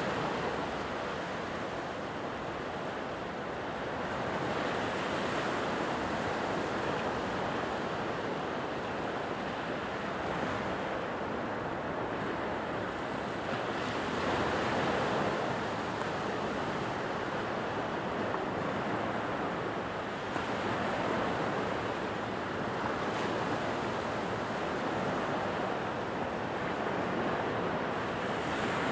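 Low surf breaking on a sandy beach: a steady wash of waves, swelling and easing every several seconds as each breaker rolls in.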